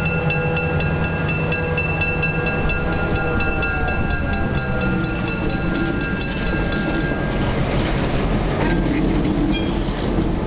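GMD FP-9 diesel locomotive's 16-cylinder engine running as it pulls past and away. A fast, even ringing of about four strokes a second carries over the engine and fades out about seven seconds in, leaving a rougher rumble.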